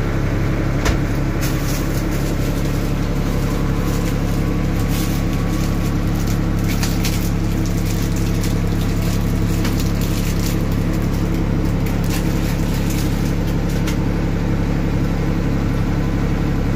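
A steady low hum runs throughout, with light scattered rustles and clicks from hands spreading cheese over a pizza on a baking tray.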